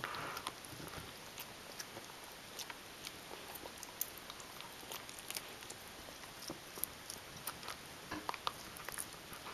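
A Shetland sheepdog gnawing on a chew bone: irregular sharp clicks and crunches of teeth on the bone, a few times a second.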